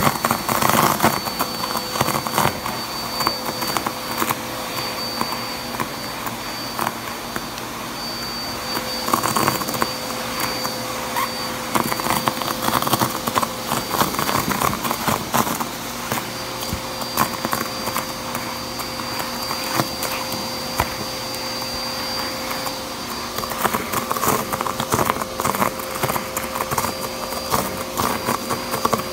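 Vacuum cleaner running steadily with a hose wand, with a steady high whine, sucking up loose tissue paper squares from carpet. The paper crackles and rattles as it is pulled into the hose, in clusters of quick clicks that come and go.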